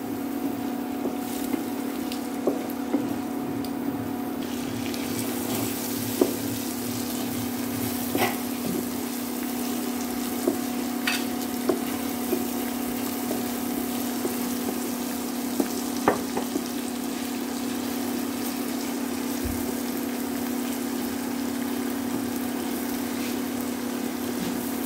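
Onion and spice masala sizzling in hot oil in a pan while a spatula stirs it, with a few sharp clicks along the way; the sizzle grows brighter about four seconds in. This is the bhuna stage, the masala being fried until the onion turns pink.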